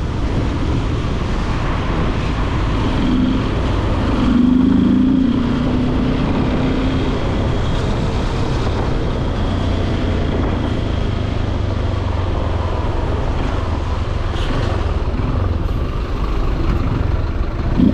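Steady road noise of a Yamaha Lander 250 single-cylinder motorcycle being ridden, with a low drone of engine and wind throughout. The sound swells briefly about four seconds in, with a bending tone.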